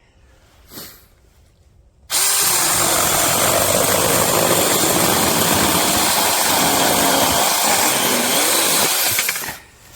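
Saker 6-inch cordless electric mini chainsaw starting about two seconds in and running loudly for about seven seconds, its pitch wavering, then stopping abruptly near the end.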